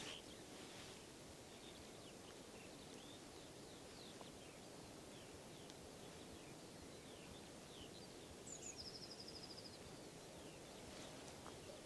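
Faint birdsong: scattered short chirps, with a brief rapid trill a little past the middle, over quiet outdoor background.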